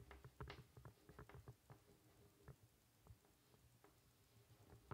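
Faint taps and scratches of chalk writing on a blackboard, many short ticks in the first two seconds and only a few scattered ones after.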